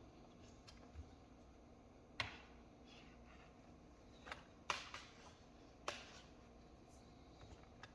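A few sharp clicks on a laptop, spaced a second or more apart, with fainter ticks between them, over near silence.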